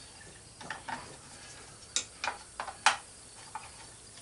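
About six sharp metallic clicks and clinks from hand tools and loose parts as a chipper shredder is taken apart, the loudest about three seconds in.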